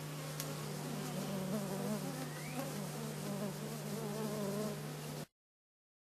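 Flying insects buzzing close by, a wavering drone over a steady low hum, with a short rising whistle about two and a half seconds in. Near the end the sound cuts out completely for about a second, a tape dropout.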